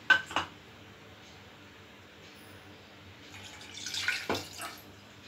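Orange juice being poured from a bowl into a stainless-steel saucepan: two sharp knocks of the bowl against the pan at the very start, then a short run of splashing and clinks about three to five seconds in as the bowl is tipped and emptied inside the pan.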